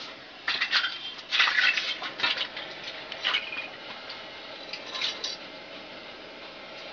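Clattering clinks of small hard metal objects being handled, in quick clusters through the first half and again briefly about five seconds in.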